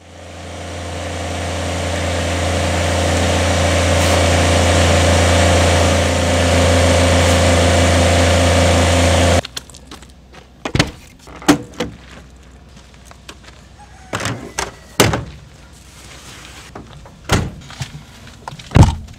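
A compact tractor's engine runs steadily and loudly, swelling over the first few seconds, then cuts off abruptly about nine seconds in. After it come several separate thunks and clunks of things loaded into a pickup truck and its door being handled, with a louder knock near the end.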